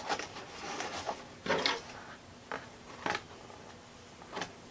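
Hands handling a small plastic LED-strip controller box and its cables on a wooden desk: about five light clicks and knocks with soft rustling between them.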